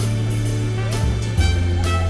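Instrumental music with a deep held bass line that changes note about halfway through, pitched notes above it, and a steady drum beat.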